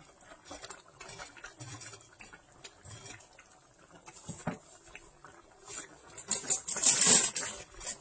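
Coconut-milk sauce simmering in a wok around fried tilapia and eggplant, with scattered small pops and crackles. A plastic spatula nudges the pieces at the start, and a louder burst of noise comes about six to seven and a half seconds in.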